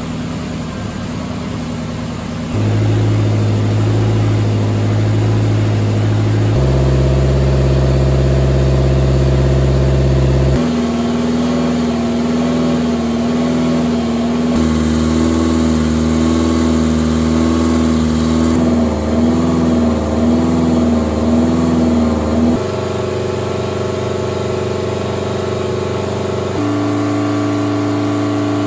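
Ferrari 308 GTS's 2.9-litre V8 running at wide-open throttle under load on a Dynapack hub dyno, held at one steady speed and then stepped up to a higher one every four seconds or so, each step a sudden jump in pitch. This is a steady-state full-load power measurement taken at fixed rpm points.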